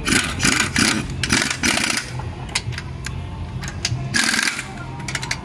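Pneumatic impact wrench on a car wheel's lug nuts, hammering in short bursts: about five quick bursts in the first two seconds, then one more about four seconds in. A steady low hum runs underneath.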